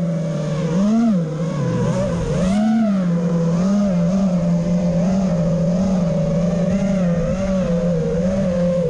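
FPV quadcopter's electric motors and propellers whining steadily, the pitch rising and falling with the throttle, with brief surges about a second in and again near three seconds.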